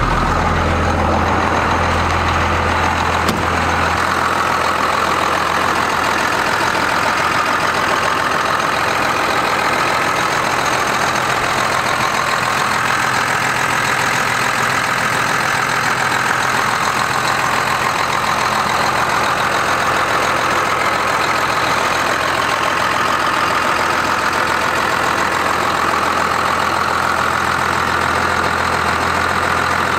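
Freshly rebuilt 12-valve Cummins 5.9-litre turbocharged inline-six diesel idling steadily just after start-up, running smoothly, purring like a kitten.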